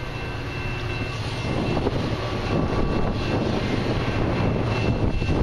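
Low steady rumble of an approaching diesel-hauled freight train that is still out of sight, with faint thin ringing tones above it and wind buffeting the microphone.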